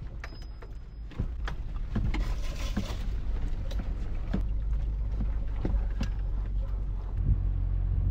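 Off-road vehicle driving over a rocky dirt trail, heard from inside: a steady low rumble of engine and tyres that gets louder about a second in, with scattered knocks and rattles as it goes over bumps.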